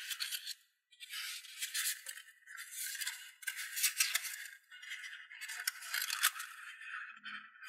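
Origami paper rustling and crinkling as hands flex and fold it, in a run of separate bursts with short pauses between them and small sharp crackles within each.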